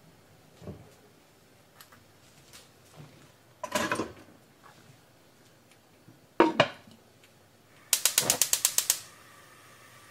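Earthenware donabe and its ceramic lid clattering and knocking as the pot is covered, then a gas stove burner's igniter clicking rapidly, about a dozen clicks in a second, as it lights; a faint steady hiss of the flame follows.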